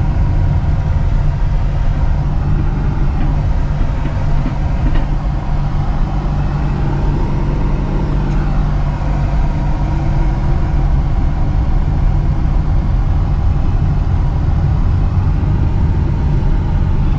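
Steady engine and road noise heard from inside a moving vehicle's cabin: a continuous low drone with no sudden events.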